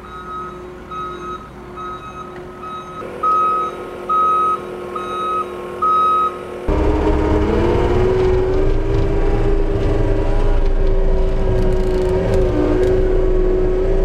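Backup alarm beeping at just under one beep a second while the skid steer climbs the rollback's tilted deck. After a sudden change about six and a half seconds in, a John Deere 333G compact track loader's diesel engine runs loud and steady with a held whine as it drives on its rubber tracks.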